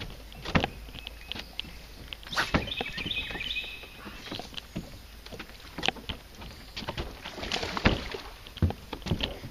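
Scattered clicks and knocks from a spinning rod and reel and from the boat while a hooked bass is being reeled in, with a brief run of high ticking about three seconds in.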